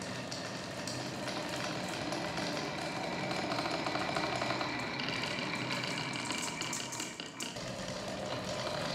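Many marbles and beads rolling and clattering down grooved wooden Haba marble-run tracks: a dense, steady rattle of small clicks. It dips briefly about seven seconds in, then picks up again.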